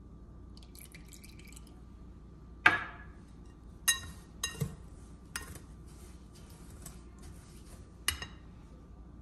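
A wire whisk clinks against a glass mixing bowl while melted fat is stirred into semolina: a handful of sharp, ringing strikes spread over several seconds, the first of them, about two and a half seconds in, the loudest. A faint hiss of the fat being poured comes about a second in.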